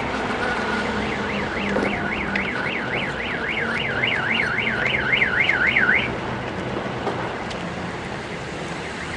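A car alarm siren warbling rapidly up and down, about four sweeps a second, starting about a second in and cutting off after roughly five seconds, over steady street traffic noise.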